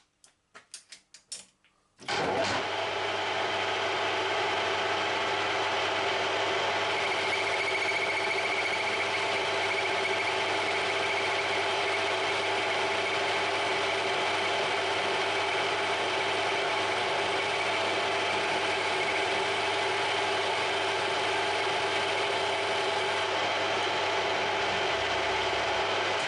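A few light clicks, then a metal lathe's motor starts about two seconds in and runs at steady speed with an even whine.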